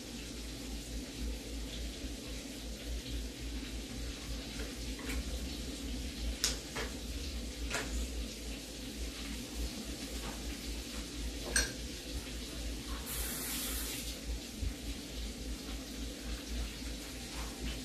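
Kitchen stovetop cooking noise: a steady hiss and low hum, with a few sharp clinks of cookware and a brief rush of noise about thirteen seconds in.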